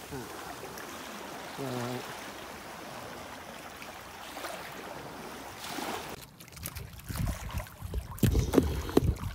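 Water sloshing around a small boat at sea. About six seconds in, wind starts buffeting the microphone with a deep irregular rumble, and a few knocks sound near the end.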